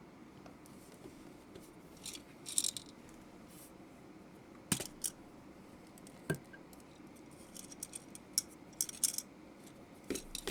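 KZZI K75 Pro mechanical keyboard with Moment linear switches: a few irregular keystrokes and short clusters of clacks with pauses between them.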